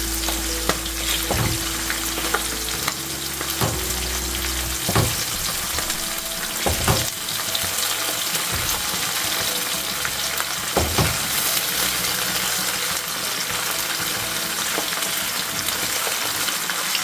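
Small mola fish sizzling in hot oil in a frying pan, a steady hiss, with several sharp clicks of a utensil against the pan during the first half as the fish are turned over.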